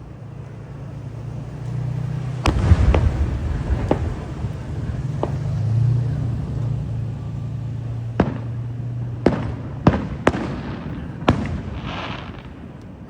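Fireworks display: aerial shells bursting with sharp bangs, about nine of them at uneven intervals, each echoing briefly, over a steady low rumble.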